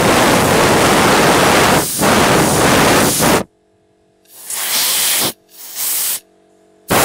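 Loud steady hiss of rubbing or rushing noise on the camera's microphone, cutting off suddenly about three and a half seconds in. Then several short bursts of the same noise as a hand handles and covers the camera, with the car's engine idling faintly in the gaps.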